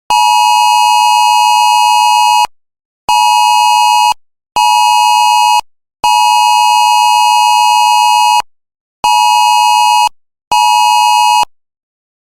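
Loud electronic alert beeps at one steady pitch, six in all, in a long-short-short, long-short-short pattern, with brief silences between them.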